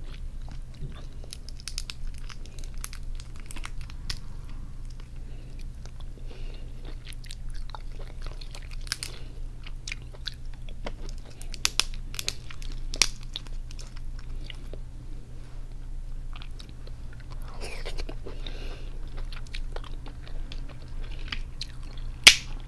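Cooked crab shell being broken and picked apart by hand: a steady run of small crackles and clicks, with a few sharper cracks, the loudest near the end, mixed with chewing.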